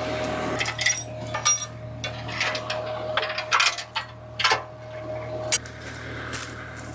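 Steel chain clinking and clanking in irregular knocks as it is handled and hooked to a disc harrow's hitch, over the steady hum of an idling skid steer.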